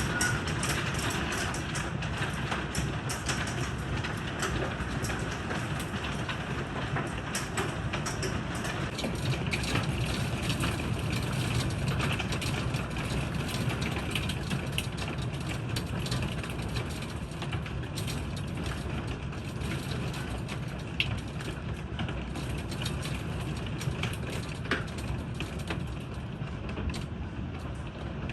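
Heavy rain falling with hail, a steady wash of noise dotted with many sharp clicks of stones striking.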